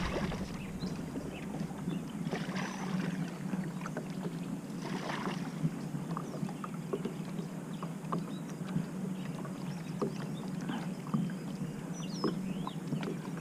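Water lapping and splashing against a plastic kayak hull as the kayaks move, with scattered light clicks and knocks over a low steady hum.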